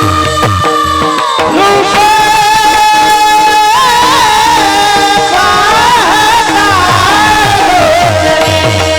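A solo voice singing a devotional song in long, held, ornamented notes over a steady drone accompaniment, with low drum strokes in the first second or so and again near the end.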